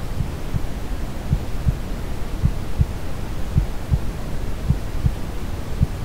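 Deep brown noise: a steady low rushing hiss, with a soft low double thump repeating about once a second in a heartbeat-like rhythm.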